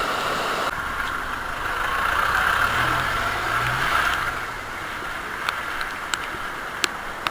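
Steady rush of a waterfall, swelling for a couple of seconds in the middle, with a vehicle engine faintly rising in pitch in the background around the same time.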